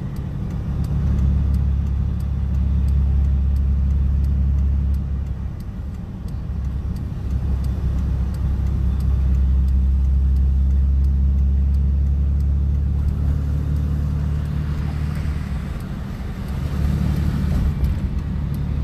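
Steady low engine and road rumble inside a moving vehicle's cab, easing off briefly twice.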